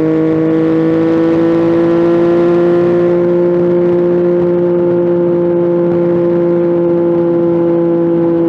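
Yamaha FZ-09 (MT-09) three-cylinder engine pulling steadily in one gear, its pitch creeping up slightly over the first few seconds and then holding nearly level.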